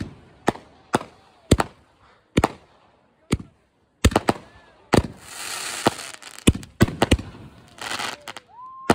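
Aerial fireworks bursting overhead: a quick, irregular string of sharp bangs, with spells of crackling about halfway through and again near the end.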